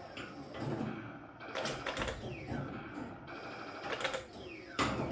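Claw machine's motors whirring as the claw moves and lowers into the prize pile, with several clicks and knocks and a couple of short falling whines.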